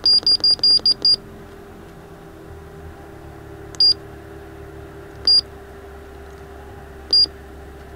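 Key-press beeps from the Cat PM622 cold planer's grade-control display as its side buttons are pressed to scroll the menus. A quick run of about seven high-pitched beeps comes in the first second, then three single beeps a second or two apart, over a steady low hum.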